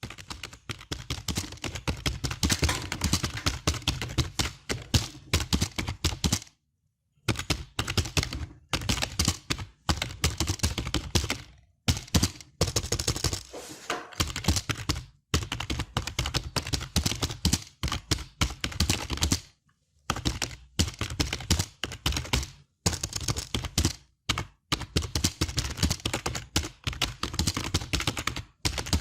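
Computer keyboard being typed on fast, runs of rapid key clicks broken by short pauses, the longest about seven seconds in.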